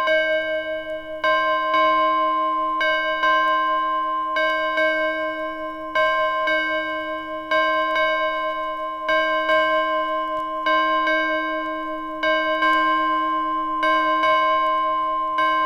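A single bell tolling steadily, struck about every one and a half seconds on the same pitch, each stroke ringing on and fading into the next.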